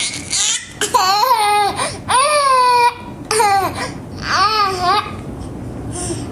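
A baby squealing in a high pitch, about five drawn-out squeals in quick succession that stop about a second before the end.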